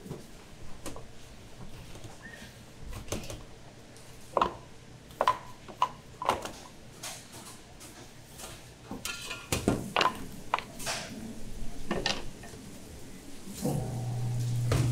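Wooden spatula pressing and scraping a sticky purple rice and almond candy mixture in a stainless steel tray, with irregular knocks and clanks of wood and metal against the tray. A low steady hum comes in near the end.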